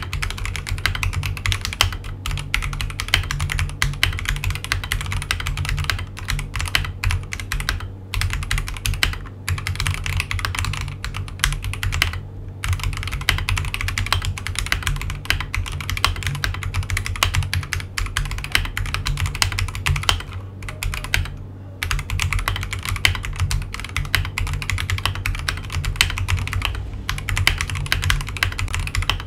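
Typing sound test on an Akko 3098B mechanical keyboard with Akko Jelly Pink linear switches (45 g) and ASA-profile PBT keycaps over plate foam. Fast, continuous keystrokes with a few short pauses.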